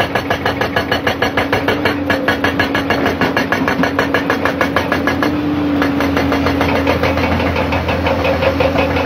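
Hydraulic rock breaker on a JCB tracked excavator hammering hard rock in a fast, even rapid-fire rhythm, over the steady hum of the excavator's diesel engine.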